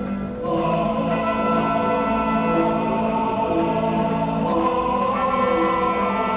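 Choral music: a choir sings long held chords over a steady low note, coming in fuller about half a second in, with a short note repeating about once a second.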